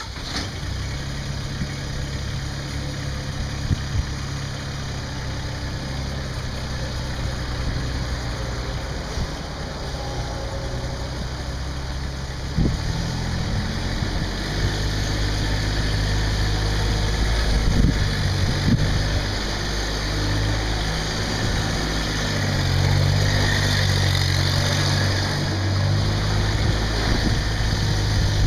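Massey Ferguson GC2610 sub-compact tractor's diesel engine running steadily. Its note changes about halfway through and it grows louder, with a few short knocks after that.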